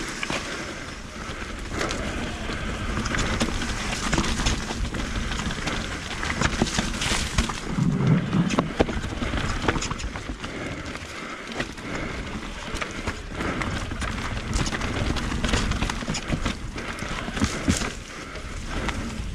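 Electric mountain bike riding fast down a dirt singletrack: tyres crunching over dirt, roots and dry leaves, with frequent rattles and knocks from the frame and drivetrain over the bumps.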